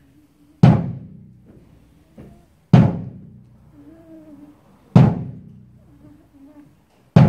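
Music: four loud struck hits, evenly spaced about two seconds apart, each ringing away over about a second, like deep drum strokes or heavy chords closing the accompaniment.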